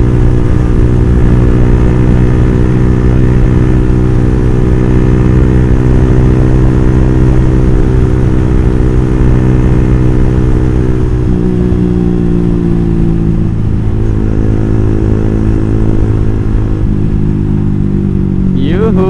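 Motorcycle engine running through a Ronin Katana aftermarket exhaust while riding at a steady pace, its pitch dropping a little about eleven seconds in.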